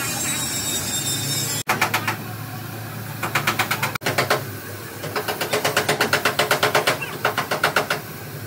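Rapid metal tapping, like a hammer working sheet metal, in several short runs of about seven strikes a second, over a low steady hum.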